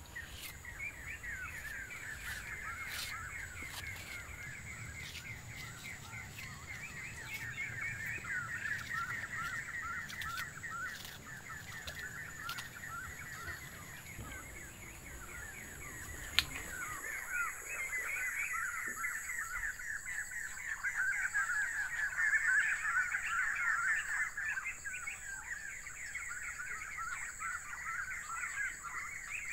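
Many birds chattering and calling at once in a dense, continuous stream of short high calls, growing louder a little past the middle.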